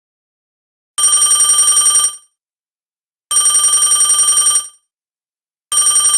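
Telephone ringing sound effect: three trilling, bell-like rings, each a little over a second long with a pause of about a second between them, the third still going at the end.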